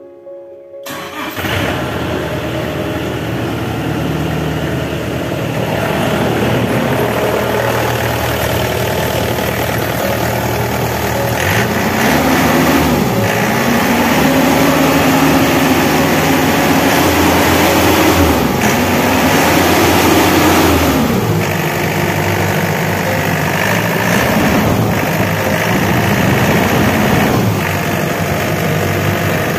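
Yanmar YH850 combine harvester's diesel engine starting about a second in, then running at a steady idle. In the middle the revs are raised and let down a few times before it settles back to idle.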